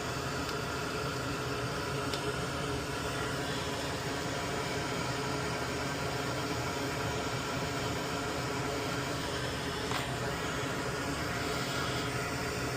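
Steady whir and hiss of a small electric fan running, with a couple of faint clicks.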